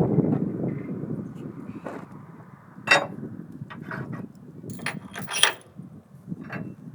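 A low machine rumble dies down over the first couple of seconds. A few sharp clinks and knocks follow, about three seconds in and again around five seconds.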